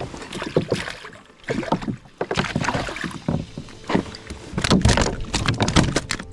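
Water splashing with irregular knocks and rattles on a fishing kayak as a caught goatfish is handled aboard.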